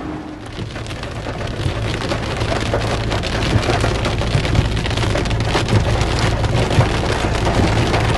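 Rain pattering on a moving car, a dense crackle of many small drops that starts about half a second in, over a steady low hum of the car on the road.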